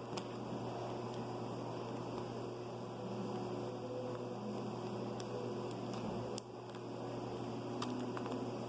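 Steady low electrical hum, with a few faint clicks scattered through.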